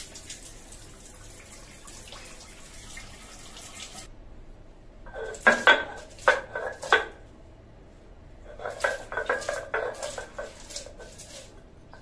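Water running for about four seconds, stopping abruptly. Then a few loud, sharp clacks of stone and metal being set down, and a run of rapid knocking as a stone roller crushes green chillies on a flat grinding stone (shil-pata).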